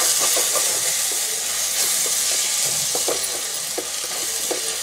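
Chopped onion and tomato sizzling in oil in a pan while a wooden spatula stirs them, with a hiss throughout and several short scrapes of the spatula against the pan. The tomato has cooked down soft.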